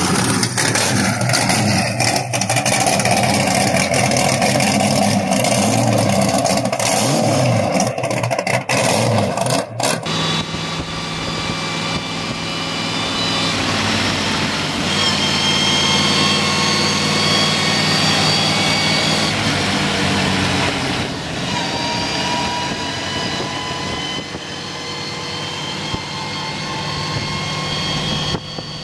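V8 engines swapped into old Ford tractors, running through open exhaust. For about ten seconds one is revved up and down. Then, after a sudden change, a second V8 Ford tractor runs at a steady road speed.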